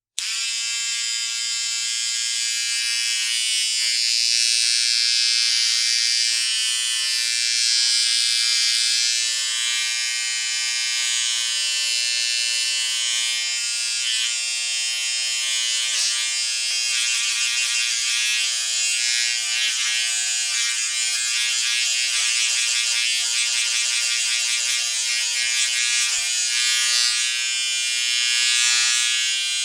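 Portable electric shaver running with a steady high-pitched buzz.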